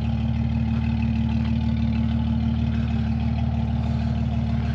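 Jeep Cherokee's engine idling steadily.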